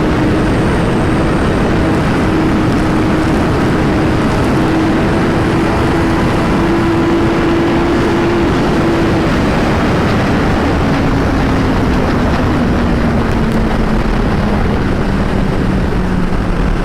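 Kawasaki ZX-10R's inline-four engine running through an Akrapovič carbon slip-on exhaust while the bike is ridden, over a steady rush of wind and road noise. The engine note holds steady for about the first half, then slowly falls in pitch as the bike eases off.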